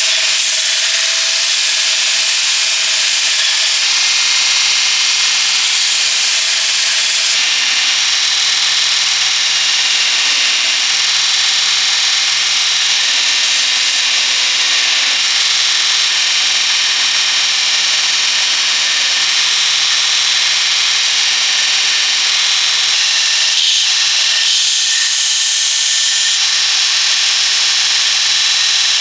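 An electric power tool running steadily with a bright, hissing noise at an even level.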